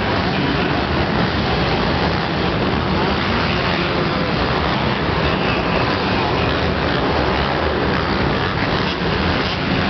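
250cc motocross bikes racing around an indoor arenacross track, several engines revving and running together in a steady, loud din.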